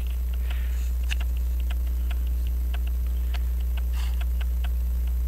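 Steady low electrical hum with a regular light ticking, about five ticks a second, and a couple of brief soft puffs of air.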